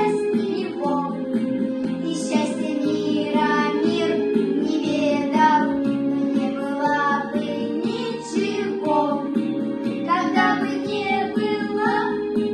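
Children's vocal ensemble singing a song with instrumental accompaniment.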